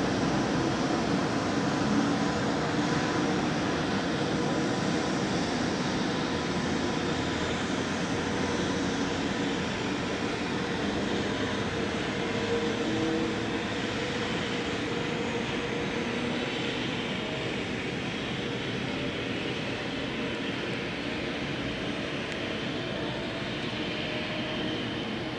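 EH200 electric locomotive hauling a train of tank wagons slowly along an elevated track, running with a steady rumble and a faint steady whine. The locomotive is slowing under dynamic braking, and the sound eases off gradually.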